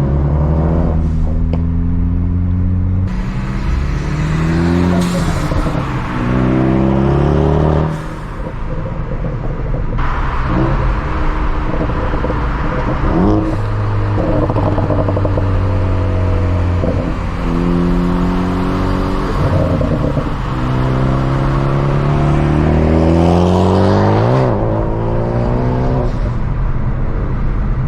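Ford Focus ST's turbocharged four-cylinder through a Borla catback exhaust, revving up and shifting again and again, the pitch climbing and then dropping at each change. On lift-off the exhaust pops and crackles, produced by a pops-and-crackles tune.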